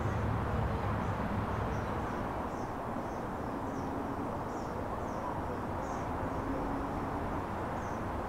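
A small bird repeating short, high chirps, roughly two a second, over a steady outdoor background noise.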